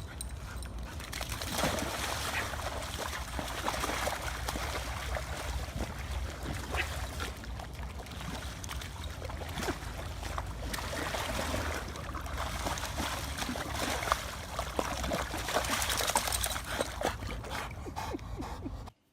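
Water splashing and trickling, with many small splashes over a low rumble, cutting off abruptly near the end.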